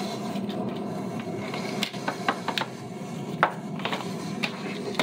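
Small hard objects clicking and clacking as they are handled and set down: about a dozen light, irregular knocks, most of them in the second half, over a steady low background noise.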